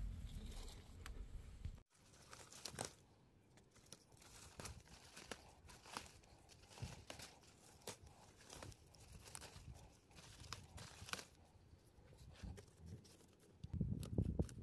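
Faint rustling of bean plant leaves, with scattered short snaps as bean pods are picked off the plants by hand.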